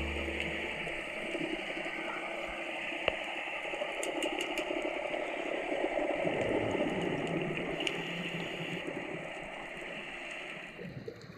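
Underwater sound picked up by a diving camera: a steady rushing, bubbling water noise with scattered faint clicks, growing quieter near the end.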